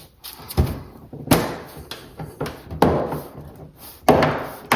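Plastic rocker panel clips on a BMW M4 snapping into place as the panel is pressed home: four sharp thunks, each with a short ringing tail from the panel. This is the sound of a clip seating properly.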